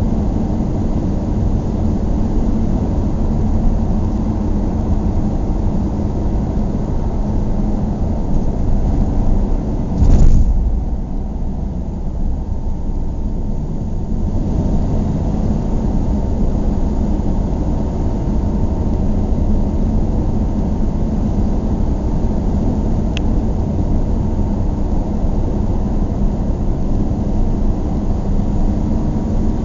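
Steady low road and engine rumble heard from inside a moving car's cabin. About ten seconds in comes one loud thump, after which the sound is duller for a few seconds.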